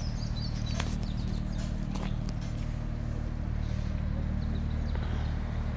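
A steady low engine hum, with a couple of faint clicks about one and two seconds in.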